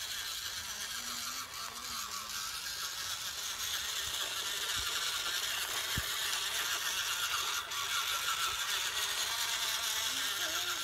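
Small electric drive motors of a homemade 4WD Arduino RC jeep whirring as it drives over dirt and grass, growing a little louder over the first few seconds, with two dull knocks about five and six seconds in.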